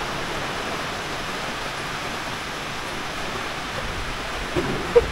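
Steady rushing noise, even in level throughout.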